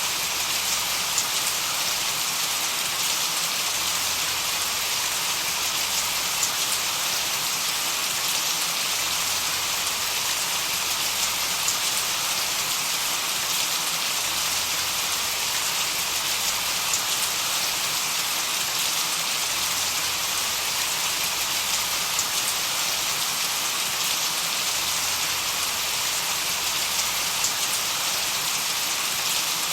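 Steady rain-like white-noise hiss, strongest in the upper range, with a few faint scattered ticks. It does not change.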